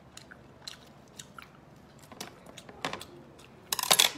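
Close-miked sounds of eating and handling a sea snail: scattered small wet clicks and mouth noises, then a louder, dense crackling squelch a little before the end as the snail meat is pulled apart.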